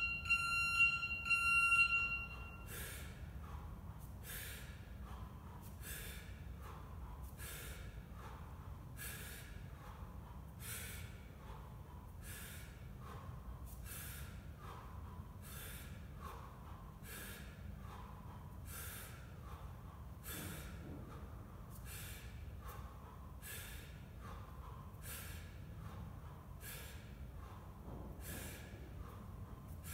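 A few electronic beeps in the first two seconds. Then sharp, forceful breaths, about one every 0.8 s, in time with one-arm swings of a 24 kg kettlebell.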